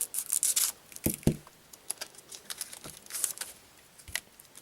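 Foil Pokémon Base Set 2 booster pack wrapper being torn open and crinkled, in quick crackly bursts that are densest in the first second and then come in scattered crinkles, with a couple of soft knocks about a second in.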